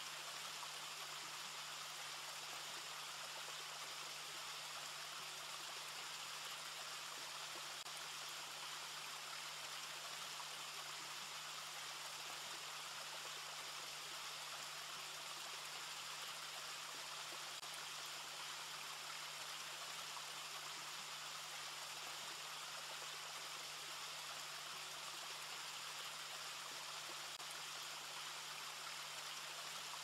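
Steady, even hiss with a faint low hum underneath, unchanging throughout; no bird calls stand out.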